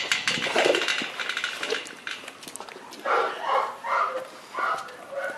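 Metal clinking and rattling for the first two seconds, then a Presa Canario dog gives about five short cries in quick succession.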